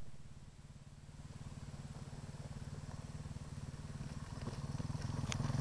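Off-road motorcycle engine running at low revs with a rapid, even beat, growing louder as the bike comes closer over loose rocks. A short click near the end.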